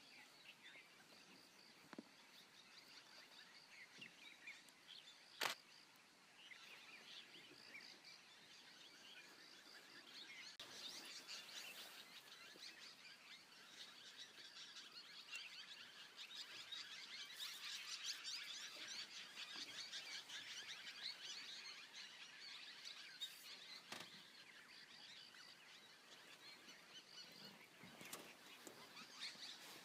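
Faint wild ambience of small birds chirping, busiest in the middle stretch, with a single sharp click about five seconds in.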